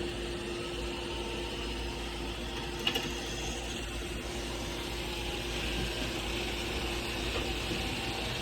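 Roomba robot vacuum running with a steady motor hum and whir, and one sharp click about three seconds in.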